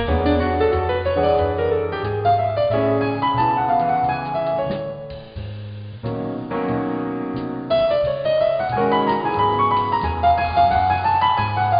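Background piano music: a melody of held notes over low bass notes, going softer about five seconds in and picking up again about a second later.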